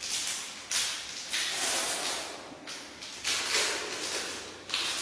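Plastic snack packet crinkling and rustling in several separate bursts as hands work it open.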